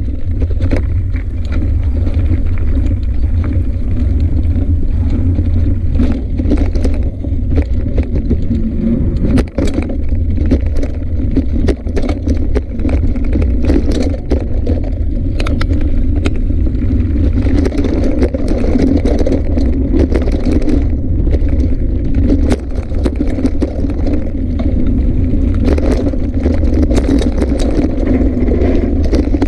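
Bicycle rolling fast over a rough dirt forest trail, heard from the handlebars: a steady loud rumble of wind and tyre noise with frequent irregular rattles and knocks as the bike jolts over bumps.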